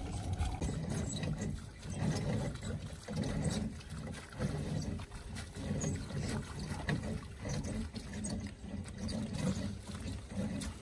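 Wet shrimp net being hauled hand over hand out of the water over a boat's side, water streaming and dripping off the mesh, with low surges about once a second as each length comes in.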